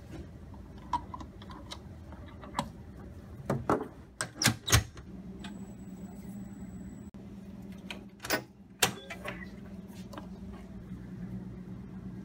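Thermo Scientific benchtop centrifuge being loaded and started: plastic tubes knock into the rotor and the lid shuts with a few loud knocks. Then a steady hum sets in and carries on, with a thin high tone for a couple of seconds and two more sharp clicks.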